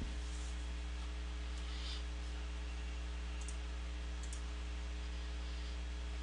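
Steady electrical mains hum with background hiss, with a couple of faint clicks in the middle.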